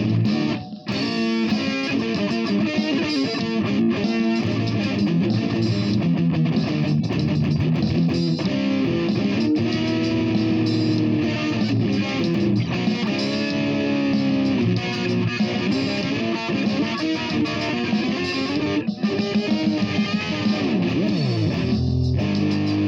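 Electric guitar played freestyle: continuous melodic lines and chords, with a sliding drop in pitch near the end.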